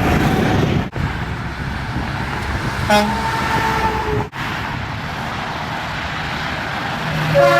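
Semi-truck air horns sounding over steady highway traffic noise: a short blast about three seconds in, held for about a second, then a louder chord of several horn tones starting near the end.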